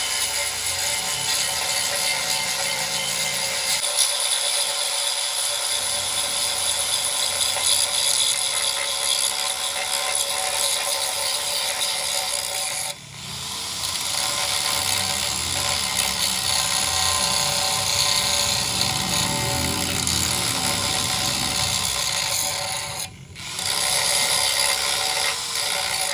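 Continuous power-tool noise in a workshop, a dense steady hiss and whir, broken briefly about halfway through and again near the end.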